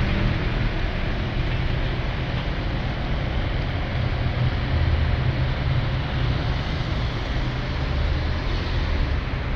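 Steady low engine rumble from a motor vehicle, with an even road and wind hiss over it.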